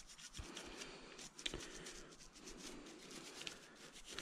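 A toothbrush scrubbing dirt off the outside of a golf-cart carburetor: faint scratching of bristles on the metal body, with a few small clicks and soft knocks as the part is handled.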